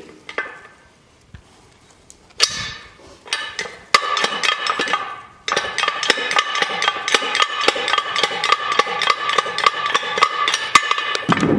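Steel ratchet of a 10-ton Simplex railroad track jack being worked by hand. Two single metal clanks come first, then a fast, even run of clicks, about six a second, with a metallic ring.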